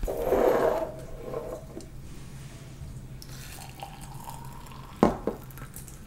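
Freshly boiled water being poured from a glass electric kettle into a drinking glass over a tea bag. There is a brief handling noise at the start and a single sharp clink about five seconds in.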